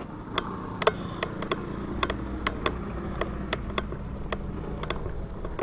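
Motor scooter engine idling low and steady, with sharp irregular ticks about two or three times a second.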